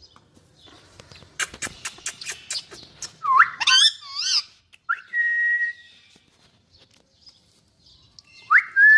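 An Indian parrot making a run of sharp clicks, then whistling. Its whistles rise and break into a warble, and two of them sweep up and hold one steady note, the second near the end.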